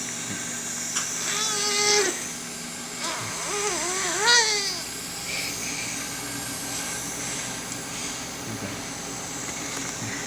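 Baby fussing: two short vocal cries. The first is held on one pitch, the second wavers up and down and is louder.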